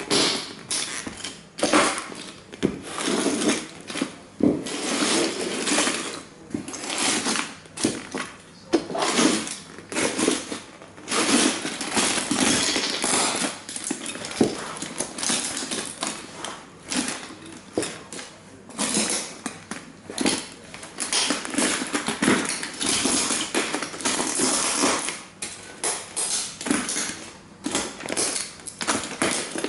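Cowboy boots stomping and trampling broken plastic model toy trains: dense, irregular crunching, cracking and clattering of the fragments under the soles.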